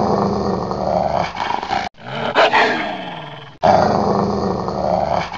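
A puppy growling continuously while play-fighting with a cat. The sound cuts off abruptly twice, about two and three and a half seconds in.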